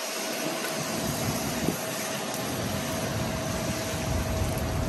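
Heavy rain falling steadily on pavement and parked cars, as an even hiss, with a low rumble building from about a second in and a faint steady hum underneath.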